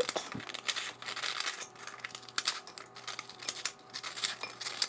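A knife cuts through white bread held in the hand, and the crust crackles in a run of short, irregular crunches.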